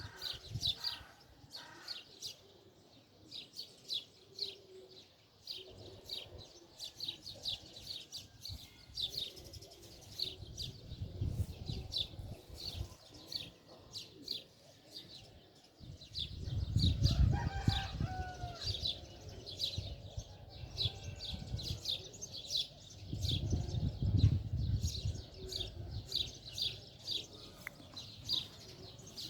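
Small birds chirping in rapid, repeated high chirps throughout, with a rooster crowing once about 17 seconds in. Bouts of low rumble come and go underneath.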